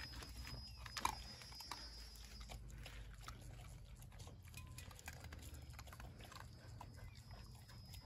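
A dog eating dry kibble from a tray: faint, irregular crunching and clicking as it chews the pellets, with one louder crunch about a second in.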